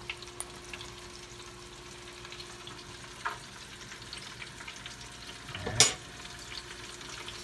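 Steady low sizzle of food frying, with a faint steady hum under it for most of the time. About six seconds in, a spoon knocks sharply against the metal pan, the loudest sound, with a lighter knock a little after the midpoint.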